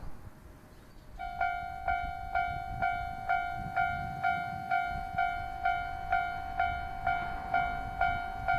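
Japanese railway level-crossing warning bell starting up about a second in and ringing in a steady electronic 'kan-kan' rhythm, about two strikes a second, over a low rumble.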